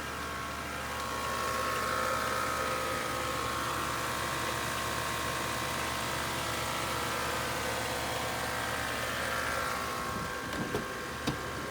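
Steady buzzing hum under the hood of a 2013 BMW X5 with the engine idling and the A/C or heater blower running. The buzz has several held tones and swells slightly about a second or two in. A few faint clicks come near the end.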